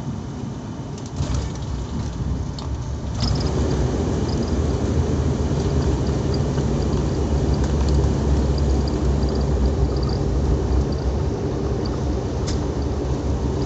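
Turboprop airliner heard from the cabin during landing: a steady engine and airflow drone that jumps sharply louder about three seconds in and stays loud.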